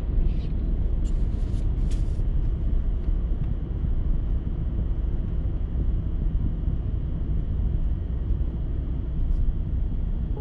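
Steady low road and engine rumble inside a moving car's cabin, with a few short clicks in the first two seconds.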